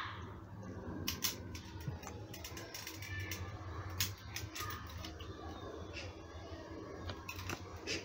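Utility knife blade cutting and scraping at the rubber insulation of a vacuum cleaner's power cord, in short irregular scrapes and clicks, as the cord end is stripped to expose the wires for rejoining.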